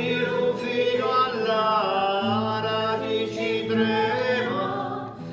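Several voices singing a Sicilian love song in long, slow held notes, layered like a small choir over a steady low note.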